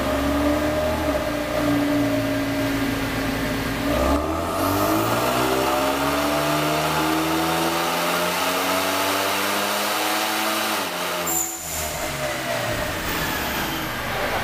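Hyundai Veloster Turbo's turbocharged 1.6-litre four-cylinder engine making a dyno pull: it runs steadily at first, then about four seconds in the engine note climbs steadily under load for some seven seconds. Near eleven seconds it cuts off sharply and the revs fall away.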